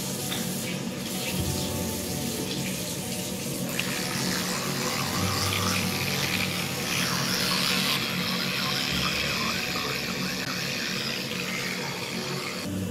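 Bathroom tap running into a sink with water splashing, starting about four seconds in and stopping just before the end, over background music.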